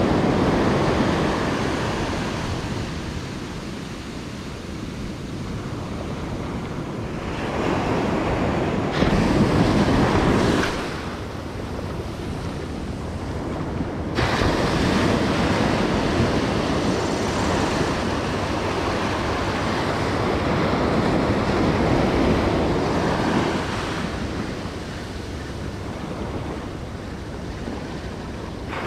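Ocean surf breaking and washing up over sand, swelling and ebbing every several seconds.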